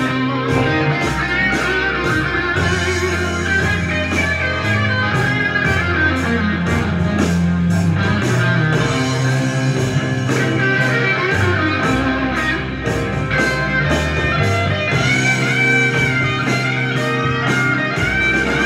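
Rock music with electric guitar over a steady drum beat, played from a vinyl record on a turntable through a vintage hi-fi amplifier and loudspeakers.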